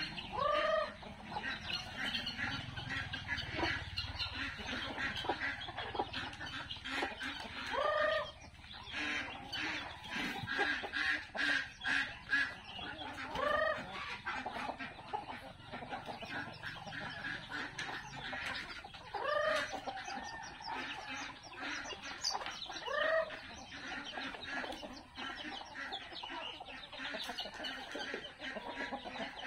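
A flock of chickens clucking, with a short rising-and-falling call standing out about five times.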